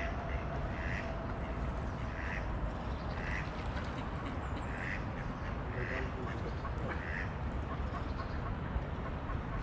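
A duck quacking on the water, about six calls roughly a second apart, over a steady low background rumble.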